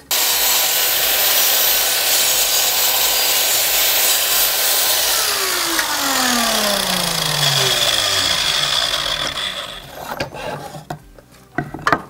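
Silverline mitre saw (chop saw) running and cutting through an oak offcut. About five seconds in it is switched off and the blade winds down with a falling whine, stopping about ten seconds in.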